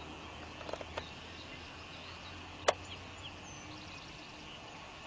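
Outdoor background of steady low hum and hiss with a few faint bird-like chirps, a couple of light clicks about a second in, and one sharp click near the middle that is the loudest sound.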